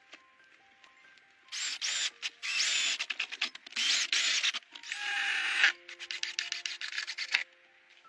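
Four rasping strokes of a hand tool on wood, then a quick run of light scraping ticks, over soft background music.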